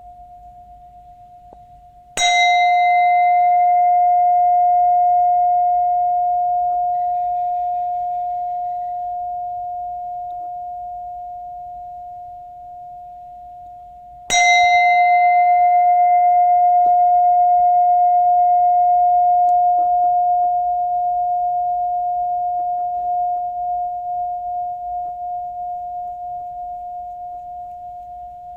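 Buddhist bowl bell struck twice, about twelve seconds apart. Each strike rings one steady tone with bright higher overtones that fade within a few seconds, while the main tone dies away slowly; the ring of an earlier strike is still fading at the start.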